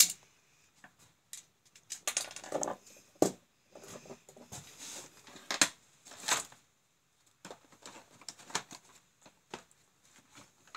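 Handling noise from taking apart a plastic electrical contactor and moving parts and tools on a workbench: a sharp click at the start, a stretch of scraping and rattling about two seconds in, then scattered clicks and knocks.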